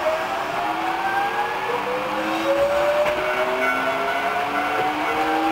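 Hankyu 8000-series electric train accelerating, heard from the front of the train: several whining tones from its electric traction drive rise steadily in pitch over a running rumble.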